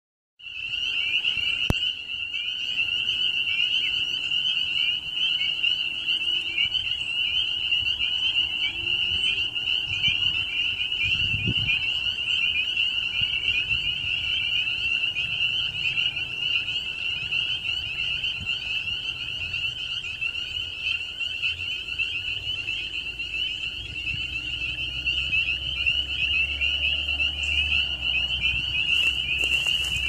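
A dense chorus of many frogs calling at once from a marsh: a continuous, high-pitched mass of overlapping calls with no break. It is a breeding chorus of males calling for mates.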